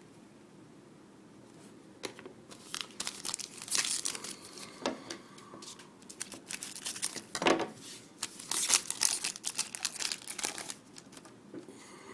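Hockey card pack wrapper being torn open and crinkled. A dense, irregular crackling starts about two seconds in and goes on until near the end.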